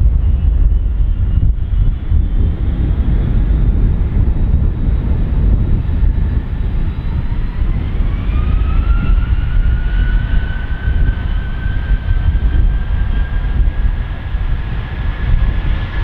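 Jet airliner on its takeoff run: a deep rumble with an engine whine that rises in pitch about halfway through and then holds steady as the aircraft comes closer.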